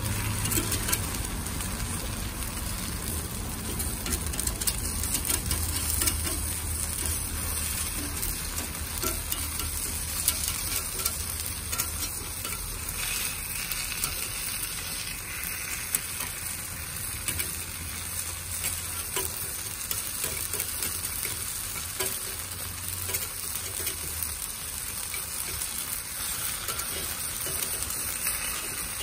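Takoyaki batter sizzling in a takoyaki pan while a metal-tipped pick turns the balls, with frequent small scrapes and taps of the pick against the pan.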